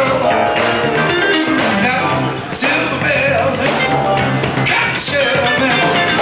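Live rhythm-and-blues band playing, with electric guitar, bass guitar, keyboards and drums.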